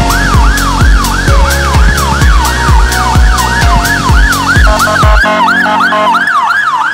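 Fire engine electronic sirens yelping, a fast rise and fall about two and a half times a second, with a second siren joining out of step near the end. A music track with a heavy drum and bass beat plays underneath and cuts off about five seconds in.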